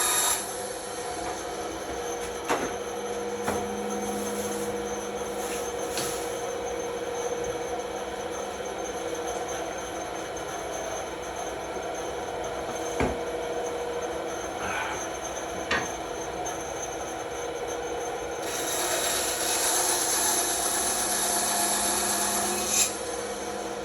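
Bandsaw running and cutting through wood: a steady motor hum with the blade's hiss, which grows louder for about five seconds near the end. A few sharp ticks sound during the cut.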